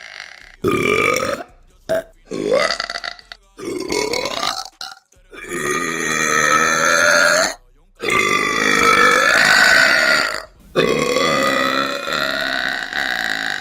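A woman belching repeatedly: about six loud burps with short gaps between them, the first few about a second each and the last three long and drawn out.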